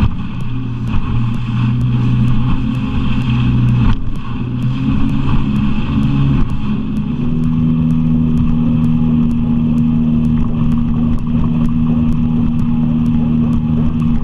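A small boat's outboard motor running under way. Its pitch steps up about four seconds in and again a couple of seconds later, then holds steady.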